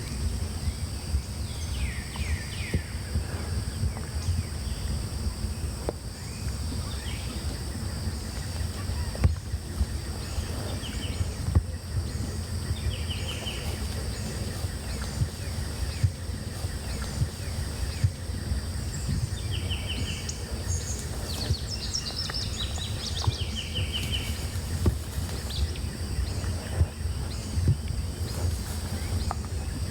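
Outdoor ambience: a steady low rumble under a constant high-pitched hum, with short bird calls every few seconds, most of them in the middle and later part.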